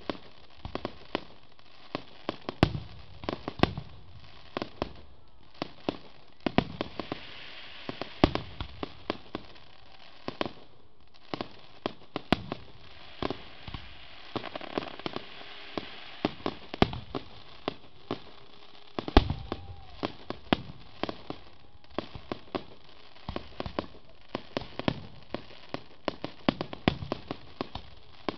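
Aerial fireworks display: shells bursting in quick, irregular succession, often two or three bangs a second, with crackling from glittering crackle effects between the bangs.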